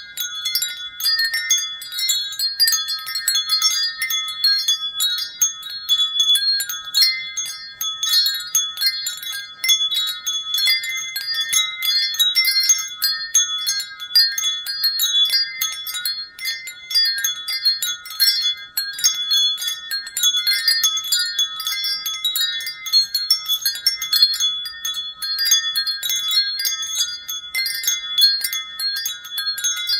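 Wind chimes ringing continuously: many high-pitched tones struck in quick, irregular succession and overlapping as they ring on.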